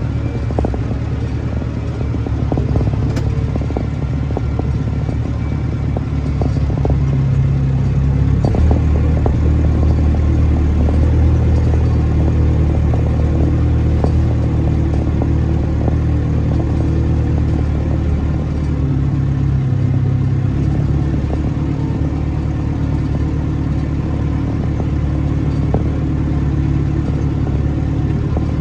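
Tractor engine running steadily, with clattering from the machinery in the first few seconds; the engine's note steps up about eight seconds in.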